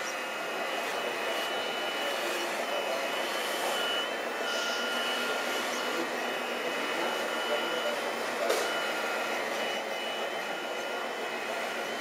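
Radio-controlled scale model wheel loader (Liebherr L576) working: a steady whine of small electric motors and gearing, with thin high tones that break off briefly now and then. A short sharp click about eight and a half seconds in.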